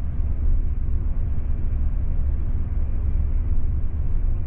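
Steady low rumble of a Deutsche Bahn Intercity 2 double-deck train (Bombardier Twindexx Vario coaches) running along the line, heard from inside the coach.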